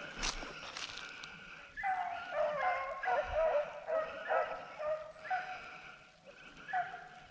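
A pack of beagles baying as they run a rabbit, several voices overlapping in repeated drawn-out bawls that begin about two seconds in.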